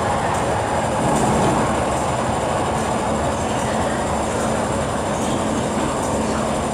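MTR diesel engineering train running away down the tunnel just after passing through the platform: a steady rumble with a faint hum and a few faint irregular clicks.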